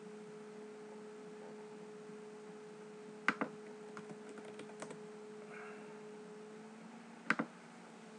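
Computer mouse clicks and light keyboard typing over a steady electrical hum. There is a sharp double click about three seconds in, a quick run of soft key taps just after it, and another double click near the end.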